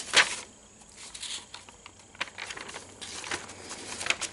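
Paper instruction sheets rustling and crinkling as they are handled and leafed through: a short loud rustle just after the start, then quieter scattered crinkles and a few light clicks.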